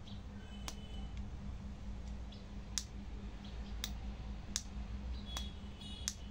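Sharp clicks, about six at irregular intervals, as the push-buttons and switches of a homemade remote control for lamps and a buzzer are pressed, over a low steady hum.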